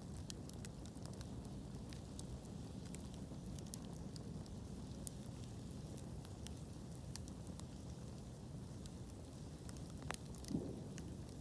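Burning wood fire crackling: a steady low rumble of flames with frequent small sharp pops and snaps, and a couple of louder pops near the end.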